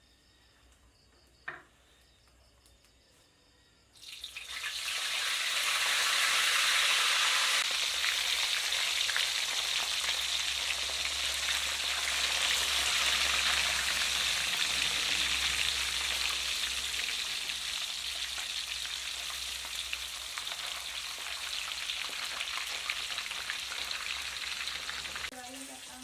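Fish frying in a pan of hot oil: a loud, steady sizzle that starts suddenly about four seconds in, as the food goes into the oil, and eases a little just before the end.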